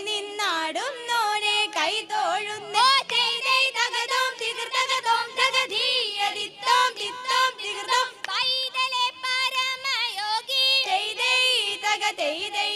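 A group of women singing a vanchippattu, a Kerala boat song, together, with a melodic line that rises and falls and hand claps keeping the beat.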